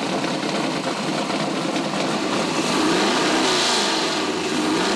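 Freshly built 572-cubic-inch big block Chevy V8 running on the engine dyno just after its initial fire-up. Its pitch rises and falls as it is revved in the second half.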